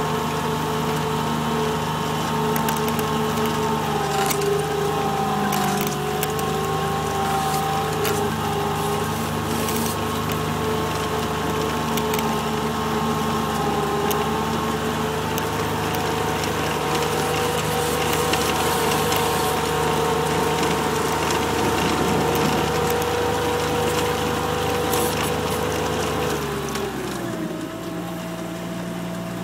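Kubota RTV 1140 CPX's three-cylinder diesel engine running steadily under load as the tracked utility vehicle drives through deep snow, with scattered knocks and rattles. About 27 seconds in, the engine note drops as it eases off.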